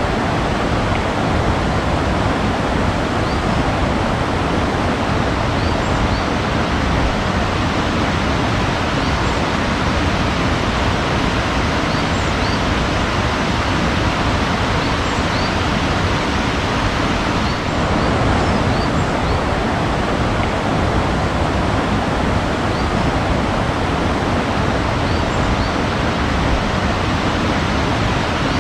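Steady rushing water, like a waterfall or fast stream, with faint short high chirps of small birds scattered through it.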